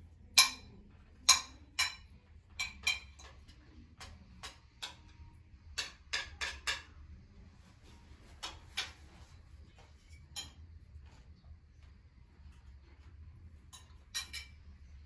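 Metal spoons clinking and scraping on ceramic plates and serving dishes while people eat: irregular sharp clinks, a few ringing briefly, coming in small clusters throughout.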